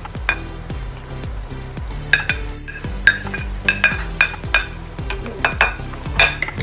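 A spoon scraping and clinking against a plate again and again as chopped vegetables are pushed off it into a pot of soup, over background music.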